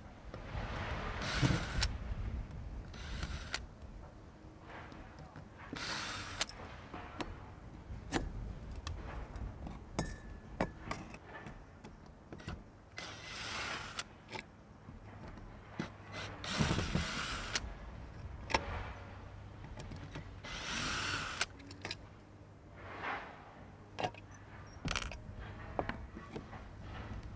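Hand work with tools: irregular short scrapes and rustles, sharp clicks and light metal clinks, over a faint steady low hum.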